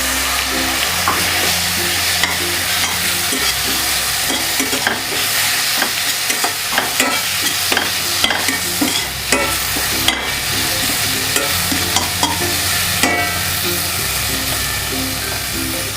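Chopped tomato and onion-chilli masala frying in hot oil in a pan, sizzling steadily, while a spatula stirs through it with frequent clicks and scrapes against the pan.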